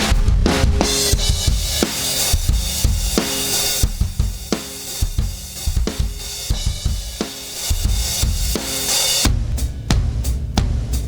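Drum kit recording playing through a heavy compressor plugin (KIIVE XTMax): kick, snare and cymbals in a steady groove. The cymbal wash and the ring of the drums change about four seconds in and again about nine seconds in.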